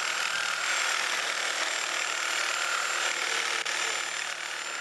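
Reciprocating saw running steadily, its blade cutting through a thick lumber brace to cut out an angled notch.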